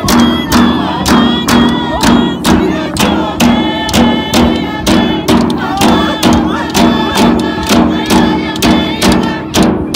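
Inuit drum-dance song: large hand-held frame drums struck together in a steady beat, about two strokes a second, with a group of voices singing over it.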